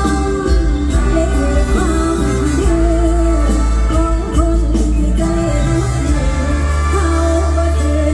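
Live mor lam band music played loud through the stage PA, with a heavy steady bass and a voice singing the melody.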